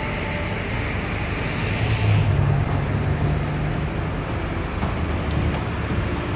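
City street traffic: a steady rumble of cars and engines, with a vehicle's engine hum swelling louder about two seconds in.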